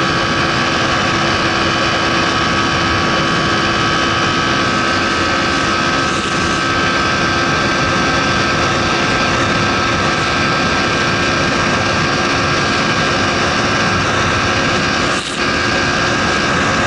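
Honda Tornado 250 single-cylinder motorcycle engine, fitted with a 290 big-bore kit and intermediate cams, running at full throttle with a steady, unchanging drone. A brief drop in level comes about fifteen seconds in.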